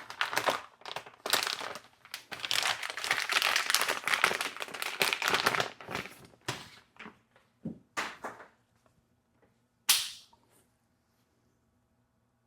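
Packaging around a battery electrolyte pack being torn open and crinkled by hand for about six seconds, then a few scattered taps and clicks, with a sharp click about ten seconds in.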